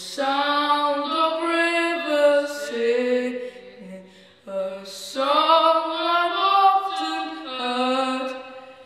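A boy's treble voice singing unaccompanied in long held notes: two phrases with a short breath between them about four seconds in.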